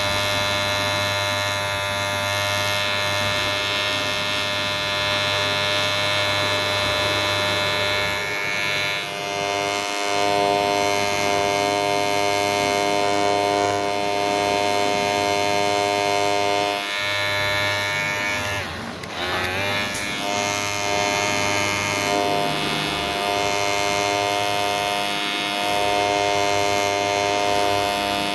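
Ubeator cordless electric hair clipper running, a steady, loud buzz with a deep hum. About two thirds of the way through, its pitch briefly sags and wavers, then it settles back to a steady buzz.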